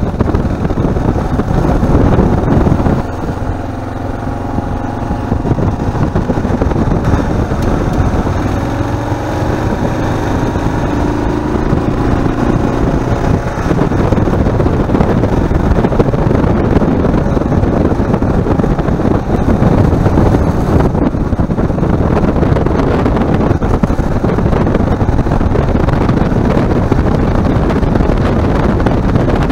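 Kawasaki KLR650's single-cylinder engine running while the motorcycle rides a dirt road, with heavy wind rush on the bike-mounted microphone. A faint engine note shifts in pitch between about 4 and 13 seconds in.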